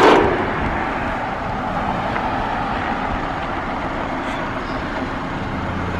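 Scion FR-S's FA20 flat-four engine running at low speed as the car is driven down off a trailer's ramps, a steady sound with no sharp knocks. A steady low hum comes in near the end.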